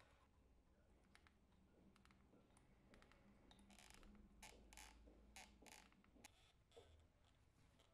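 Near silence with faint clicks and short scratchy sounds from a caulking gun pressing grey graphite-based intumescent fire sealant into the joint around a pipe. The clicks come in a cluster from about three and a half to six and a half seconds in, over a faint low room hum.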